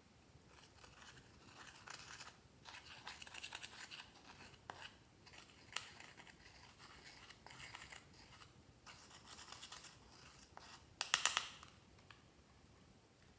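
Clear slime being worked by hand, with sticky crackling and clicking as it is stretched and pressed. There is a short louder flurry of crackles near the end.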